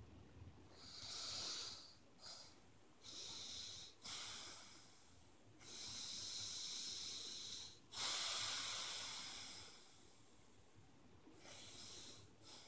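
A person breathing close to the microphone: about eight forceful, hissing breaths, most lasting one to two seconds, with a couple of short, quick ones among them.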